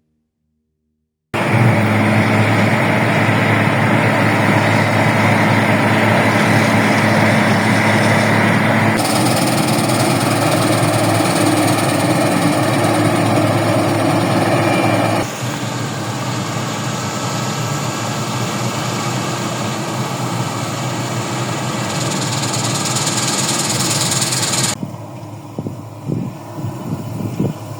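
Harvest machinery engines running steadily at work, in several shots joined by sudden cuts about 9, 15 and 25 seconds in, with the last stretch quieter. The sound starts abruptly after a second of silence.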